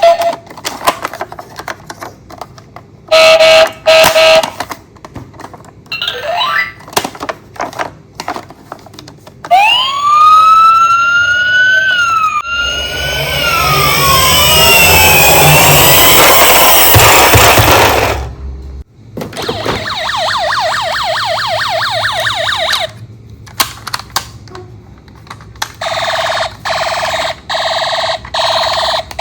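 Toy emergency vehicles' electronic sirens sounding in turns. First a siren glides up and down, then several sirens overlap for a few seconds with a low rumble, then comes a fast pulsing yelp, and near the end a repeated short tone. Small clicks fall between them.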